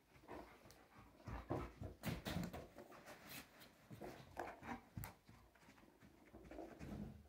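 A dog playing with a ball on a carpeted floor: irregular scuffles and knocks, mixed with short, faint noises from the dog.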